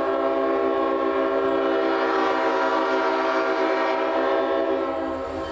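Leslie RS-5T five-chime locomotive air horn sounding one long, steady chord. The blast tails off near the end.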